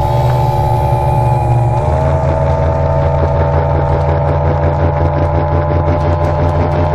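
Mercury Pro XS OptiMax two-stroke direct-injection outboard running at high speed under load, with the rush of water and spray. The engine note shifts slightly upward about two seconds in, then holds steady.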